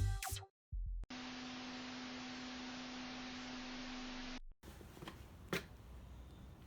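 A steady low electrical hum over even hiss, lasting about three seconds, after the tail end of music cuts off. It then gives way to faint background with a few small clicks.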